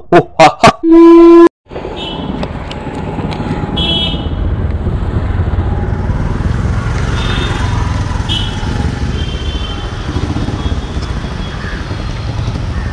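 Busy city-street traffic: scooters, motorbikes and cars running, with several short horn toots. In the first second and a half there is a loud pulsing intro sound that ends in a held tone and then cuts off.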